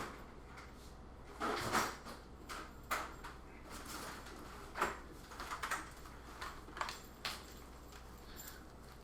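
Scattered clicks, knocks and scraping of computer parts and cables being handled and fitted, the loudest about a second and a half in.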